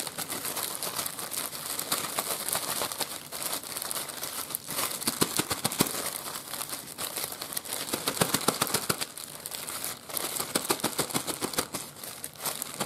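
Small zip-top plastic bag crinkling and rustling as it is shaken by hand with a doughnut and powdered sugar inside, in quick repeated runs of shaking.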